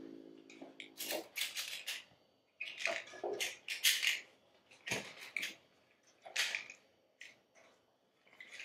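Ferno trolley harness straps being pulled and adjusted: several short rasping pulls of nylon webbing through buckles, with a sharp click about five seconds in.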